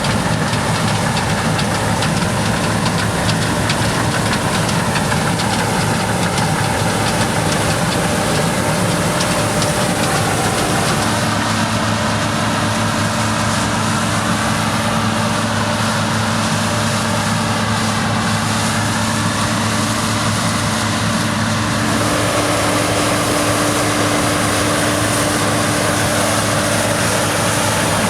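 Claas Lexion combine harvester running steadily while threshing rice: a loud, continuous machine noise with a steady hum that shifts pitch slightly twice.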